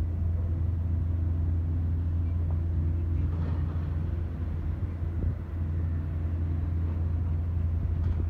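Steady low diesel engine drone from the tugboat towing the sediment barge and the excavator dredging the riverbed, holding an even pitch throughout.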